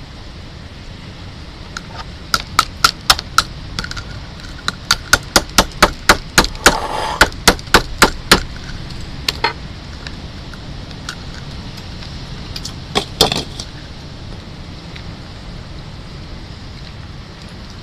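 Metal spoon tapping the shell of a fresh sea urchin to crack it open. Two quick runs of sharp taps about four a second, then a few scattered taps later.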